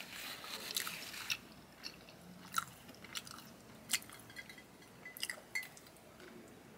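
Close-miked chewing of a mouthful of garlic Texas toast with the lips closed: wet smacks and clicks, densest in the first second and a half, then a few scattered sharper clicks.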